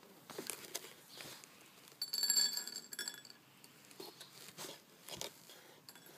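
Dry cat kibble poured onto a ceramic plate: a burst of ringing clinks and rattling about two seconds in, lasting about a second, with lighter clicks and rustles before and after.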